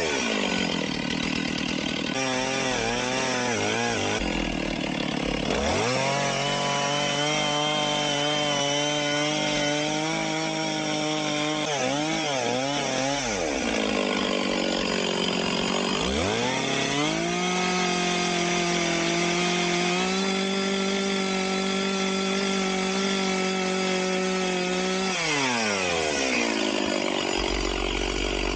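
Stihl 046 two-stroke chainsaw, likely cutting timber, revved up and held at high, steady revs for two long stretches. Between them the revs blip up and down or fall back to idle, and the saw drops to idle near the end.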